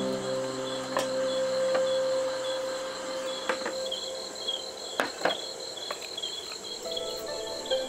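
Crickets chirping in a steady, high-pitched pulsing trill, with a few sharp clicks, two of them close together about five seconds in.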